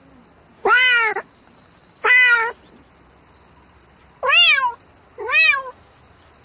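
Domestic cat meowing four times, each meow about half a second long and rising then falling in pitch.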